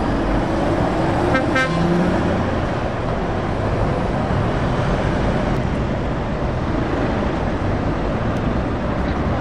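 Heavy truck diesel engine pulling away at low speed, a Volvo FH tractor unit, with steady traffic noise. A short horn toot sounds about one and a half seconds in.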